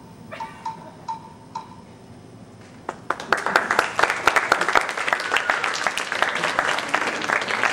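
Audience applause, breaking out about three seconds in as the scene ends in a blackout, after a few short pinging notes at the close of a music cue.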